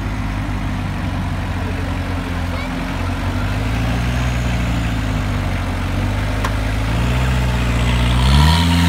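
Off-road trial buggy's engine pulling at low revs under load as the buggy climbs a steep dirt bank. The pitch rises gradually, then the engine revs up sharply near the end.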